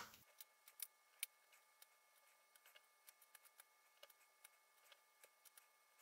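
Near silence, with faint scattered small clicks and ticks of short wire pieces being handled and set down on a cutting mat during soldering work.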